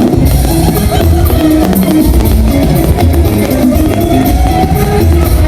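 Pop song playing with drum kit, bass and guitar, a steady beat.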